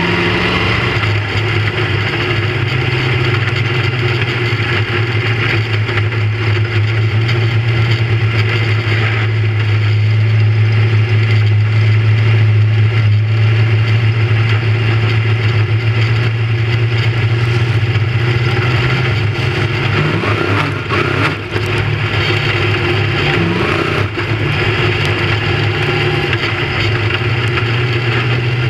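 Big-block V8 of a dirt-track modified heard from inside the cockpit, running at a low, nearly constant engine speed. It briefly lifts and dips about two-thirds of the way through before settling back.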